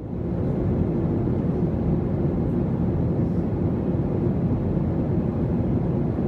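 Steady low rumbling background noise that cuts in abruptly at the start and holds even throughout, strongest in the low range.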